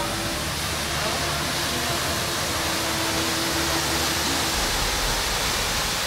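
The Giessbach waterfall rushing, an even, unbroken wash of falling water.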